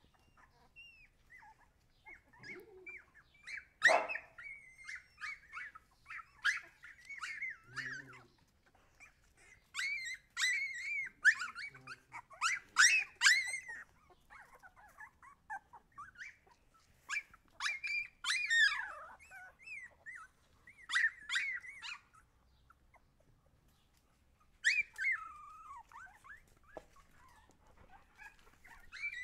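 Husky puppies whimpering and squealing in short high-pitched cries that come in clusters, with a couple of quieter gaps.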